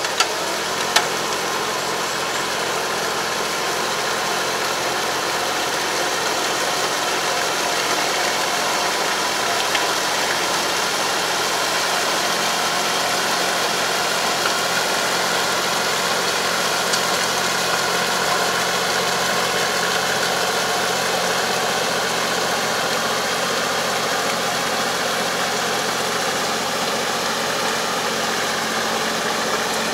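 Tractor engine running steadily as it pulls a Kobashi 3 m drive harrow puddling a flooded rice paddy, the harrow churning the mud and water. Two sharp clicks in the first second.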